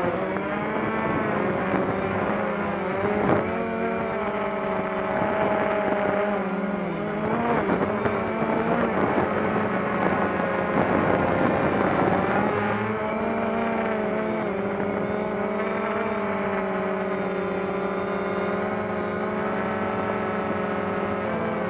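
DJI Phantom quadcopter's propellers humming in flight, several tones at once whose pitch wavers up and down as it manoeuvres.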